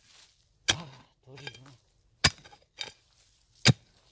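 Pickaxe striking stony soil: three sharp metal-on-rock strikes about a second and a half apart, with a lighter one between the last two. The ground being dug is full of stones.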